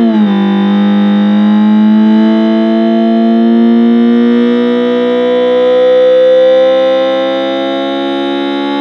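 Synthetic four-cylinder turbo engine sound, made to resemble a Daihatsu JB-DET, from a homemade optical engine-sound generator that reads a spinning slotted cardboard disc with a light sensor. Its pitch drops sharply just at the start, like an automatic gearbox upshifting, then climbs slowly and steadily as the simulated engine accelerates at high revs.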